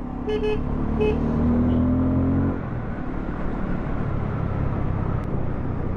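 Bajaj Pulsar F250's single-cylinder engine pulling under throttle, its note rising for about two and a half seconds, then dropping as the throttle eases or a gear changes, followed by a steadier run with wind and road noise. A horn beeps twice briefly near the start.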